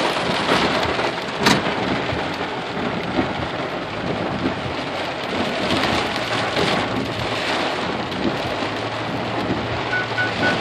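Heavy rain drumming steadily on a vehicle's roof and windshield, heard from inside the cab, with one sharp tick about one and a half seconds in.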